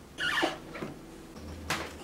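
Cardboard packaging being handled: a short scraping slide as the box moves, then a single tap near the end.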